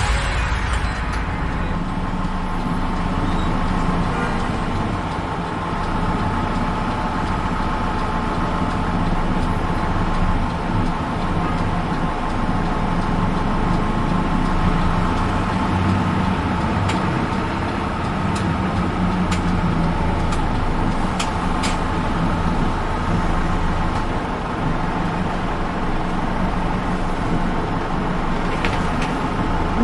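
Tour bus running on the road, heard from inside its cabin: a steady engine drone over road rumble, with a few light clicks in the middle.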